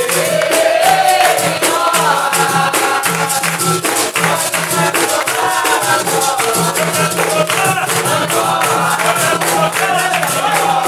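Capoeira roda music: berimbaus played with a steady rhythmic pulse, a tambourine-like pandeiro and handclaps, under singing with voices answering in chorus.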